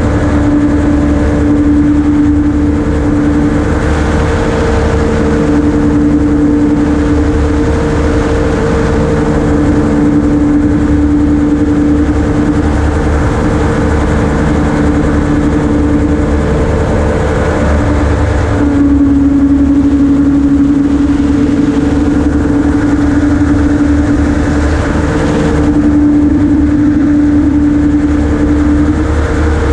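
Ultralight gyroplane in flight: its engine and propeller drone steadily. About two-thirds of the way through the engine note drops lower as power is eased back, then comes back up near the end.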